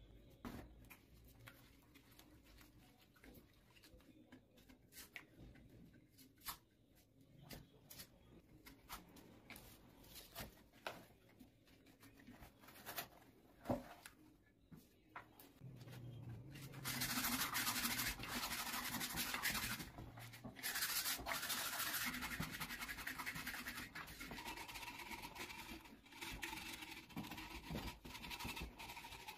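Hands rubbing and scratching a white coating onto a paper-covered ball in a plastic bowl. The first half has scattered light taps and clicks of handling, and about halfway through a dense, scratchy rubbing starts and keeps going.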